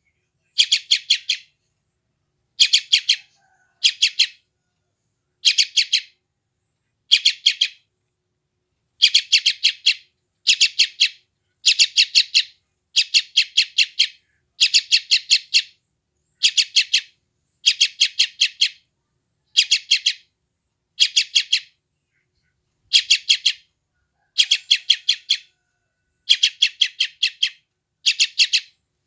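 Yellow-vented bulbul (trucukan) chick giving hungry begging calls: short bursts of rapid, harsh chirps, each about half a second long, repeated roughly once a second with brief pauses.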